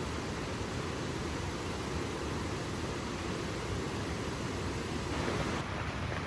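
Steady rain falling, an even hiss with no distinct events; the sound shifts slightly about five and a half seconds in.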